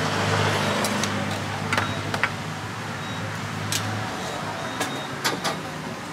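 Seven sharp metallic clinks, irregularly spaced, as steel rotisserie skewers are handled over a wire grill rack. Beneath them run market background noise and a steady low motor hum that stops about four seconds in.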